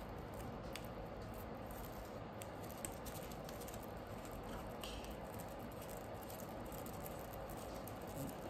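Faint rustling and a few light ticks from floral tape being wound around an artificial flower's wire stem by hand, over a steady low room hiss.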